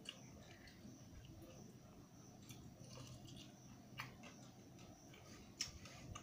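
Quiet sounds of eating rice by hand from a steel plate: fingers mixing and scraping the rice and dal on the metal, with a few small clicks, the sharpest about four and five and a half seconds in, over a low steady room hum.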